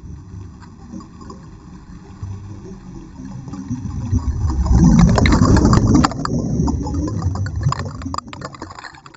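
Underwater rush of air bubbles: a low rumbling gurgle with crackling pops. It builds to its loudest about five seconds in, then fades away.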